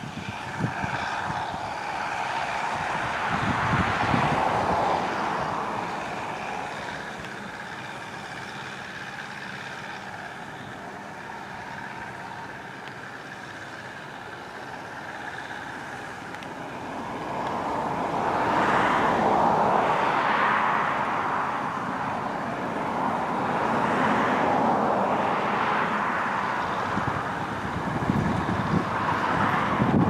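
Massey Ferguson 640 combine harvester running as it cuts standing wheat: a continuous engine and machinery noise that swells louder twice and fades in between.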